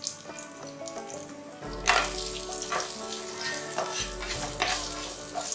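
Sliced coconut and fennel seeds sizzling in hot coconut oil in a nonstick frying pan. The sizzle grows louder about two seconds in, when a spatula starts stirring, with a few short scrapes of the spatula on the pan.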